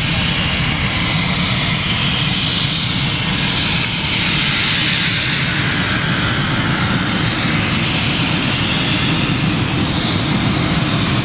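Pratt & Whitney Canada PT6A-67B turboprop engine of a Pilatus PC-12 running steadily: a loud, even mix of low propeller drone and high turbine hiss, with a slow wavering in the upper range.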